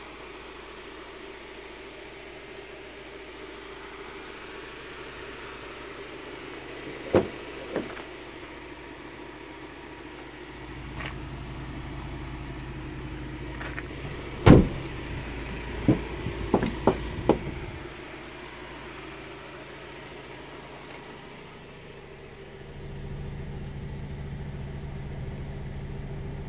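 Ford Transit diesel engine idling steadily, its hum stronger near the end. About halfway through there is a loud knock, followed by a quick run of clicks from the crew-cab door and cab being handled.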